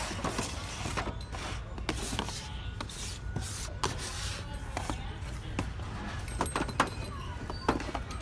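Cardboard and plastic toy boxes being handled and shifted on a store shelf: irregular clicks, knocks and rustles, over a steady low hum.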